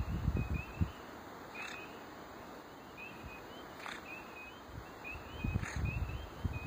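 Chorus of small frogs calling from the spring swamp: many short, rising peeps overlapping, steady throughout. Low rumbling on the microphone at the start and again near the end.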